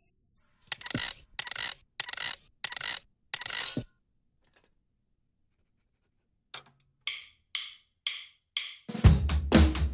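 A drum kit: five short strikes, a pause, then five more short, high, briefly ringing strikes, and about nine seconds in the full kit starts a loud beat with the bass drum.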